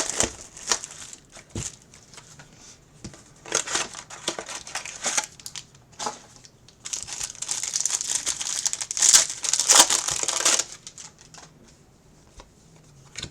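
Plastic wrapping on a trading card box being torn open and crinkled by hand: a few light clicks and short rustles, then a longer run of loud crinkling about seven seconds in.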